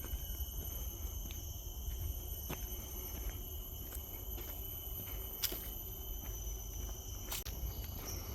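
Footsteps on a forest trail with a low rumble and a few sharp clicks, over a steady high drone of insects holding several pitches at once.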